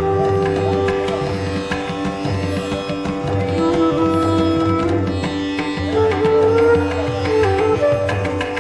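Instrumental background music: a plucked-string melody that slides between notes over a steady drone, with hand-drum percussion.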